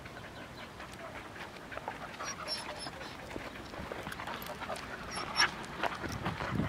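A dog panting quietly, with faint scuffling and one short, slightly louder sound about five seconds in.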